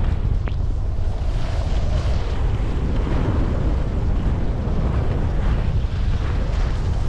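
Wind buffeting a GoPro HERO10's microphone on a downhill ski run: a loud, steady rumble, with the hiss of skis sliding on snow.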